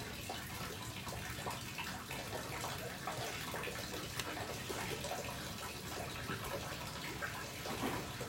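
Water running steadily through a small acrylic river flow model at 1.65 litres per minute, a constant trickling, splashing flow.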